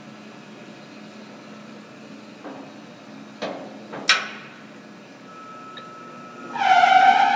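Speed-change levers on the headstock of a Monarch T-lathe being shifted, with three clunks over a steady machine hum. Near the end the spindle starts and the big faceplate comes up to speed with a loud whine from the drive.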